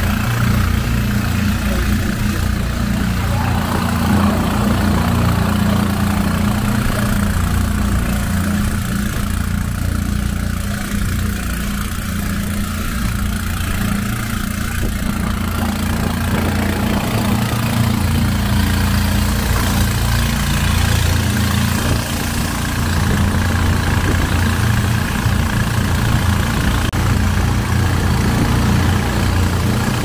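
An engine running steadily, a constant low drone with no change in speed.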